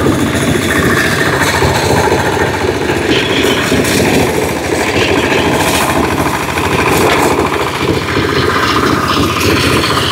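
Single-cylinder diesel engines of a homemade walking-tractor ride-on mower running steadily under load with a fast, even chug, while the front rotary drum cutter chops through grass.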